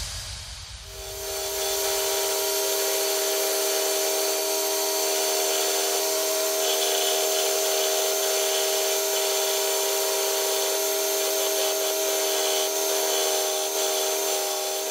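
Bench belt sander running steadily, with a wooden hammer handle pressed against the moving sanding belt to smooth it; the sound comes in about a second in.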